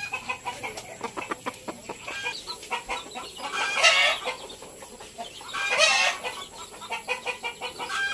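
Native chickens clucking while feeding on scattered grain, with two louder calls about four and six seconds in, amid many short clicks.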